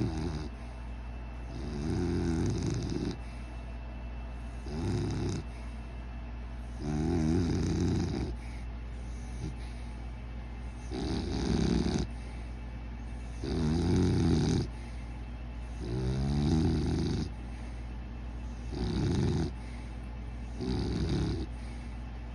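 Pet dog snoring in its sleep: a rhythmic series of low snores, each about a second long, coming about every two to three seconds.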